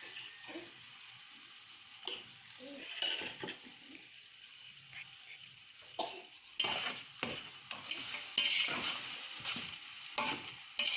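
Onions and ginger-garlic paste sizzling in a pot while a spoon stirs and scrapes against it, the scraping getting louder and busier about halfway through.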